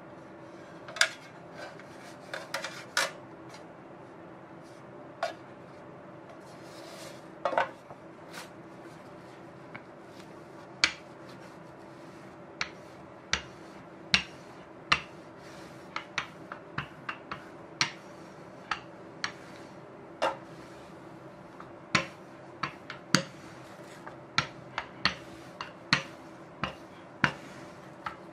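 Irregular sharp clicks and light knocks from a metal loaf pan being handled and a wooden rolling pin working dough on a silicone mat, coming about one or two a second in the second half. A faint steady hum runs underneath.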